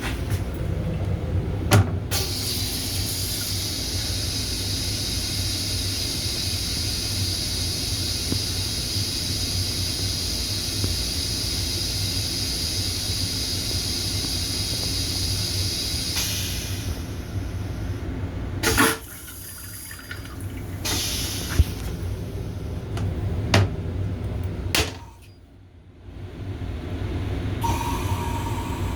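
LIRR M7 railcar restroom toilet flushing: a click about two seconds in, then a steady hissing rush of water for about fourteen seconds over the low rumble of the car. A sharp knock follows later.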